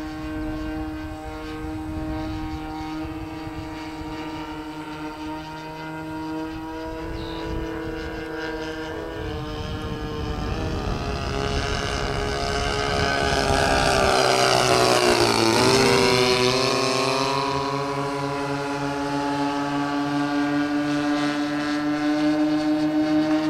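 Two DLE 30 single-cylinder two-stroke gas engines of a twin-engine RC plane, turning counter-rotating propellers, flying past. The engine note grows louder, drops sharply in pitch as the plane goes by about fifteen seconds in, then runs on steadily.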